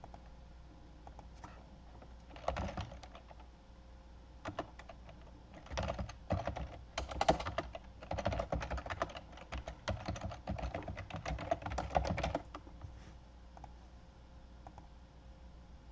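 Typing on a computer keyboard in quick runs of key clicks. A short run comes about two and a half seconds in, and the longest stretch runs from about six to twelve seconds in. A few single clicks fall between the runs.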